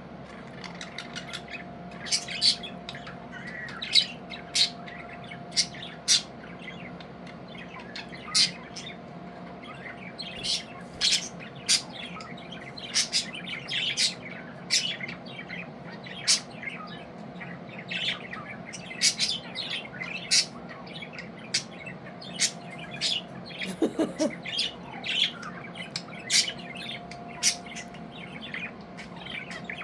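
Budgies chirping and squawking: many short, sharp calls, at times several a second, over a steady low hum.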